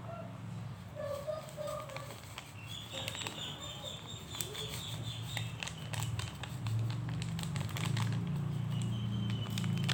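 Close-miked eating sounds: scattered wet mouth clicks and chewing over a steady low hum, with a few faint high chirping tones in the background.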